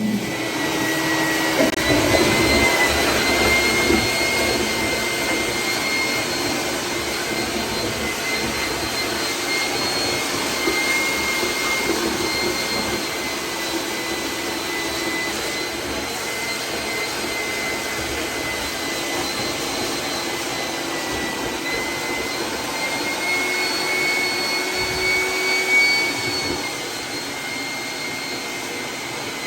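A motor-driven machine running steadily with a high whine that drifts slightly in pitch, over a rushing noise. It gets briefly louder about 26 seconds in.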